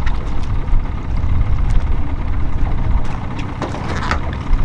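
Water splashing in short bursts as a pool-noodle jug line is hauled up against the side of a boat, over a steady low rumble.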